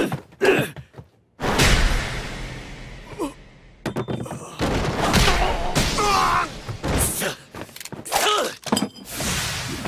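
Animated fight sound effects: a sudden loud crash about a second and a half in that dies away over a couple of seconds, then more thuds and scuffling with men's grunts and a shouted curse.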